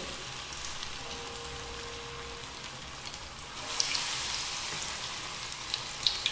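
Hot oil sizzling as grated-potato pakoras deep-fry in a shallow frying pan, with small crackles and pops. The sizzle grows louder about three and a half seconds in, as a second pakora goes into the oil.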